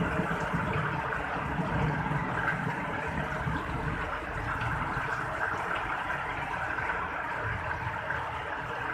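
Heavy rain falling steadily in a continuous hiss, with water running over a flooded road.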